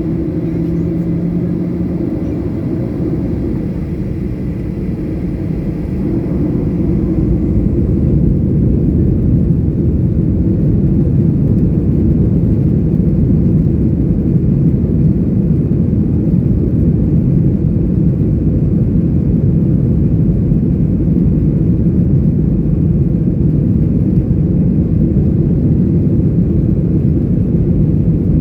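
Boeing 737 airliner engines heard from inside the cabin, a steady low rumble that grows louder about six seconds in and then holds.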